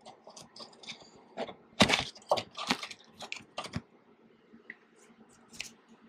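Plastic vapor-barrier sheet on a car door being peeled away from its adhesive, crinkling and crackling in a quick run of snaps, loudest about two seconds in, with a few fainter clicks near the end.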